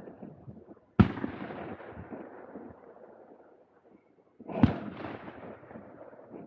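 Two .410 shotgun shots about three and a half seconds apart, each followed by an echo that dies away over a couple of seconds.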